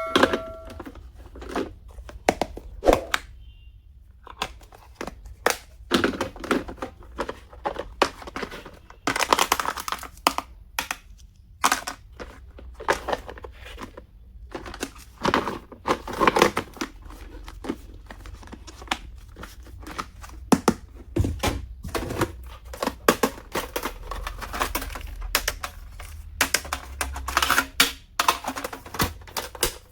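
Hands handling stationery and its packaging: plastic wrapping crinkling and tearing, with irregular clicks and taps of small plastic items being opened and set down.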